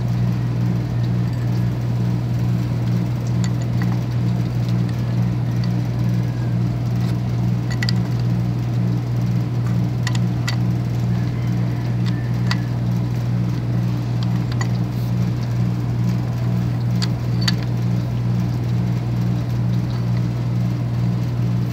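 A motor running steadily with a low, even hum, with a few light metallic clicks as channel-lock pliers tighten a brass hose bibb onto its threaded pipe.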